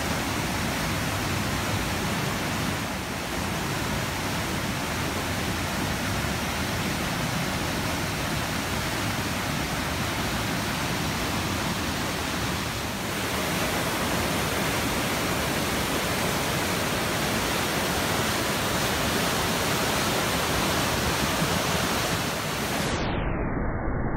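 Steady rushing of a river in flood, fast turbulent floodwater churning over standing waves. It turns duller in the last second or so.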